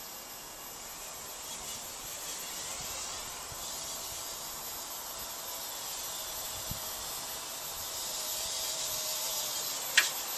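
Hubsan X4 micro quadcopter's rotors whining and buzzing at high pitch, the pitch wavering and the sound growing louder as it flies back in. About ten seconds in, a sharp knock as it touches down on the table.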